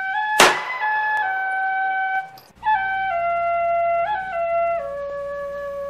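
Background music: a single melody line of held notes stepping mostly downward, with one sharp crash about half a second in and a brief break about two and a half seconds in.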